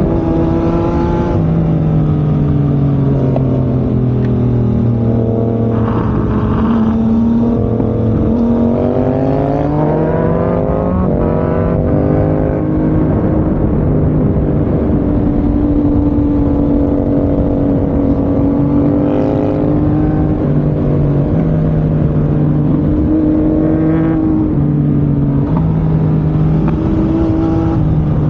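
Motorcycle engine running under changing throttle. Its pitch climbs about eight seconds in, falls away again, then holds fairly steady with small steps up and down.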